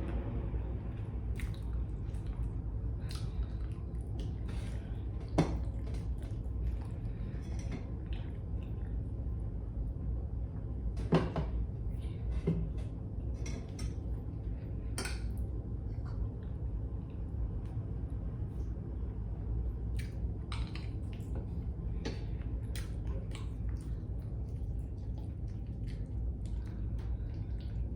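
Cutlery clinking and scraping against a plate during eating, in scattered sharp clicks, the loudest about five seconds in and about eleven seconds in, over a steady low hum.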